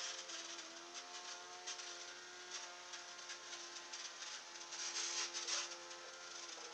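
Radio-controlled fan boat's small brushed quadcopter motor spinning its air propeller: a steady whirring hum whose pitch shifts slightly up and down, with a brief louder hiss about five seconds in. The owner takes the sound for the batteries running down.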